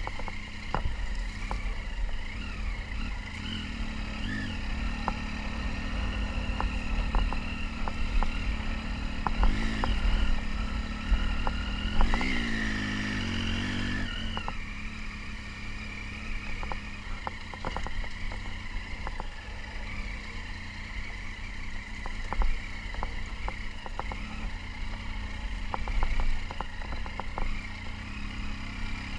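Triumph Tiger 800 XC's inline three-cylinder engine running at low speed off-road, the revs rising and falling, with a longer climb in revs about twelve seconds in. Short knocks and clatter from the bike run through it.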